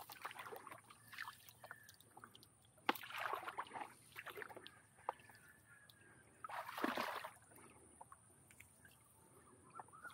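Shallow canal water sloshing and splashing in short bursts, the main ones about three seconds in and again about seven seconds in, with light knocks between.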